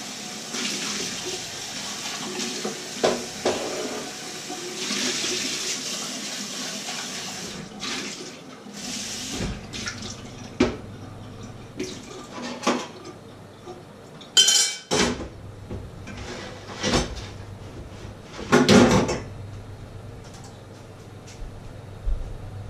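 Water running from a kitchen tap for the first several seconds, then metal pots, bowls and utensils clinking and clattering as they are handled at the sink. The loudest clanks come about halfway through and again near the end.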